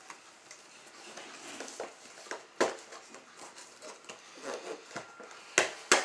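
Packaging and a camera lens being handled: soft rustling with a few sharp clicks, one about halfway through and two in quick succession near the end.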